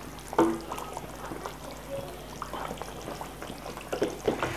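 Wooden spoon stirring thin meat gravy in a steel pot, the liquid sloshing and splashing. The spoon knocks sharply against the pot about half a second in, with a few lighter knocks near the end.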